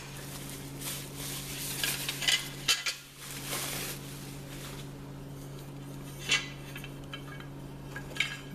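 Small metal hoist hardware, pulleys and brackets, clinking and rattling as the pieces are handled and unpacked, with a few sharp clinks and some rustling of packaging. A steady low hum runs underneath.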